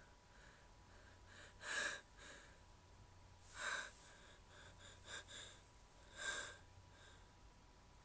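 A woman's sharp gasping breaths, three stronger ones about two seconds apart with softer breaths and two quick sniff-like catches between: the hitching breaths of a sneeze building up.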